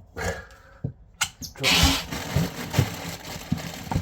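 Plumbing fittings being handled under a kitchen sink: a few sharp clicks, then a brief loud rustling burst, then a steady hiss with soft knocks.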